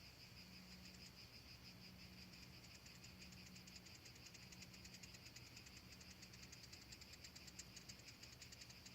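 Faint, high-pitched rapid chirping trill, steady and continuous, with a faint low hum underneath.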